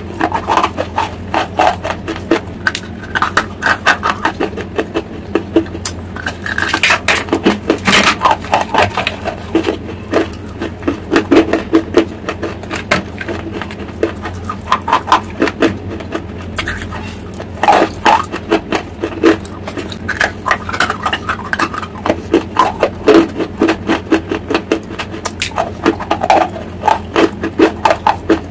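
Close-miked chewing of hard, dry clay chunks: a rapid run of crunches and gritty grinding in clusters, with short pauses between bites.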